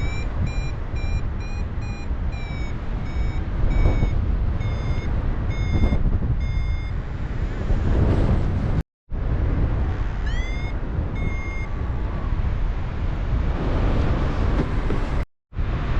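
Paragliding variometer beeping in short, same-pitched beeps, about two a second and spacing out, then after a pause a rising chirp and two more beeps; the beeping signals the glider climbing in lift. Heavy wind rush on the microphone underneath, with the sound cutting out briefly twice.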